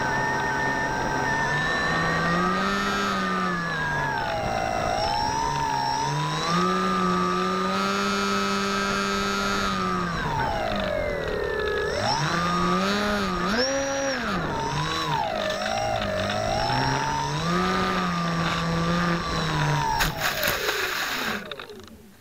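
Bixler RC plane's electric motor and propeller whining, the pitch rising and falling as the throttle is worked, dipping low once about halfway through. Near the end come a few knocks and scrapes as the plane touches down in grass, then the motor stops.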